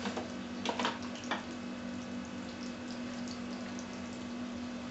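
Sliced onions sizzling in hot oil in a frying pan: a steady hiss with a few sharp crackles in the first second and a half.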